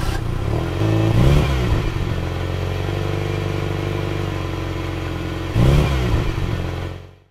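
Car engine idling just after starting, revved briefly twice, about a second in and near the end, then fading out.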